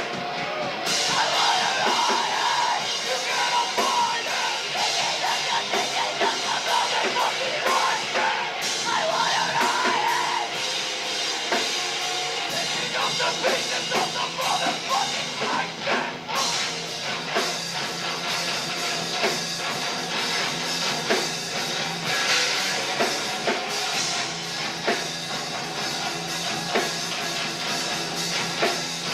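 Live rock band playing, with a drum kit and guitar.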